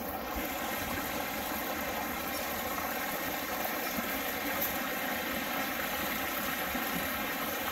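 Small rocky stream flowing over stones: a steady, even rush of water.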